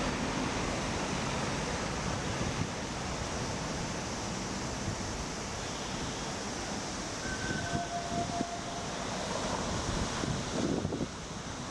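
Steady outdoor city noise, traffic and wind on the microphone, with two brief high tones about seven to eight seconds in and a few faint knocks near the end.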